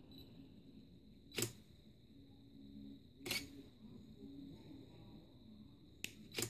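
Canon EOS 450D DSLR's mirror and shutter firing in Bulb mode from a wired remote. There is one clack about a second and a half in as the exposure opens and another about two seconds later as it closes. Two quick clicks close together near the end start a new exposure.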